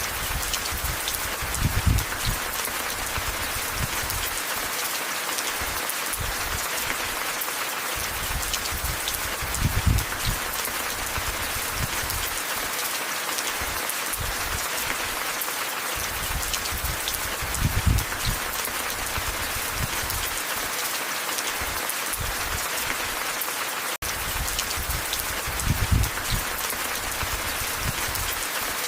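Steady rain falling, a dense even hiss. Four brief low swells stand out above it, evenly spaced about eight seconds apart.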